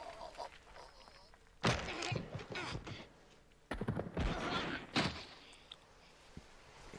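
Anime fight sound effects from the episode's soundtrack: three sudden heavy impacts, about a second and a half, three and a half and five seconds in, each fading out, with some voice mixed in.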